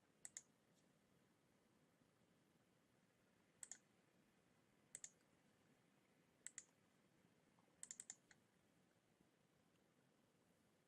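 Faint computer mouse clicks in near silence: five quick double clicks spread a second or so apart, the last a rapid cluster of clicks about eight seconds in.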